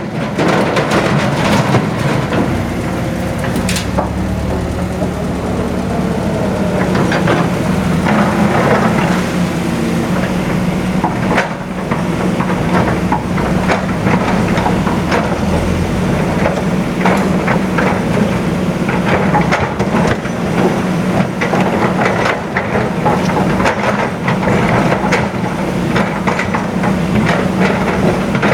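Heavy earthmoving machinery's diesel engine running steadily, with frequent knocks and clatter throughout.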